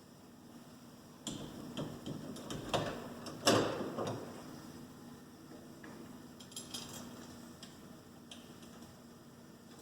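Metal door-handleset parts clinking and knocking as they are handled and fitted: a run of knocks in the first few seconds, the loudest about three and a half seconds in, then a few light clinks.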